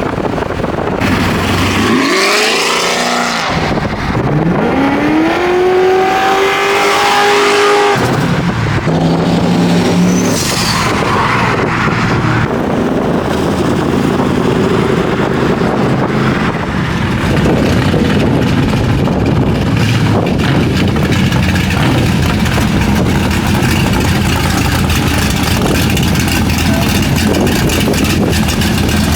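A car engine revving up in two rising pulls that level off near the top, followed by steady engine and road noise.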